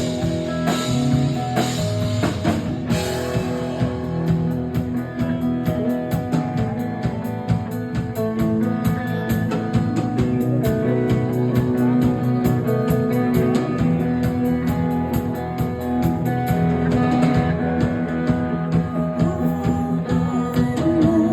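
Live rock band playing an instrumental passage: guitar over a steady drum-kit beat.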